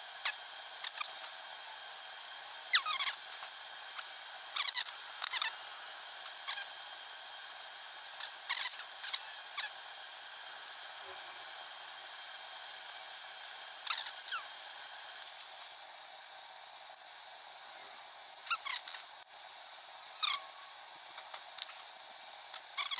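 Scattered small clicks and light metallic taps as brass and aluminium parts of a model tractor and its engine are handled and fitted together by hand, over a steady faint hiss.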